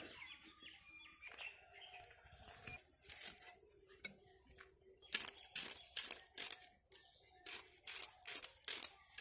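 Red onion being sliced by hand against the fixed blade of a boti, a floor-mounted curved cutting blade: a run of crisp cutting strokes, about three a second, starting about halfway through.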